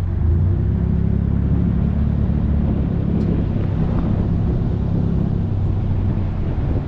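A steady, loud low rumble with a faint hum underneath, mechanical in character.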